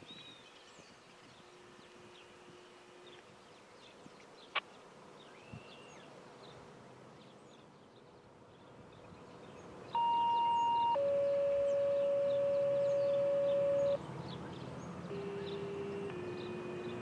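Fire-department two-tone sequential pager tones heard over a radio: a higher tone held for about a second, then a lower tone held for about three seconds. Near the end a fainter, lower steady tone starts.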